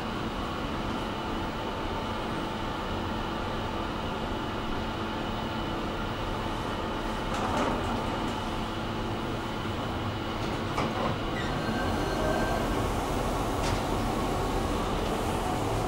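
Inclined elevator car running along its rails with a steady mechanical rumble and a faint steady whine, with a few short clicks along the way.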